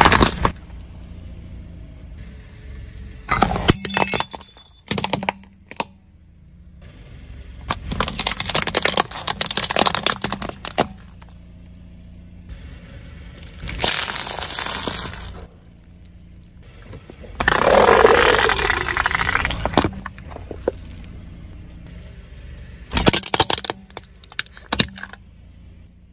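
A car tyre rolling slowly over objects on asphalt and crushing them. There are about seven separate bursts of crackling, popping and squashing, some brief and some lasting two or three seconds, with a low steady hum between them.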